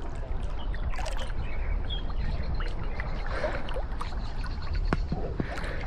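River water splashing and lapping around a small boat as a swimmer tows it, with scattered small splashes and a steady low rumble underneath.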